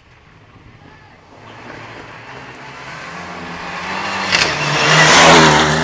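Rally car approaching under power, its engine getting steadily louder until it passes close a little over five seconds in, then starting to fade.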